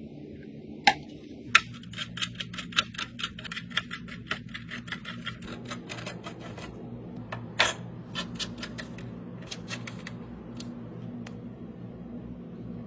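A quick run of sharp small clicks and taps, about four to five a second for several seconds, with a few single louder clicks before and after, over a low steady hum.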